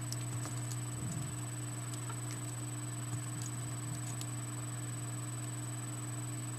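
Slow, irregular keystrokes on a computer keyboard, typed blindfolded, faint and widely spaced, over a steady low electrical hum.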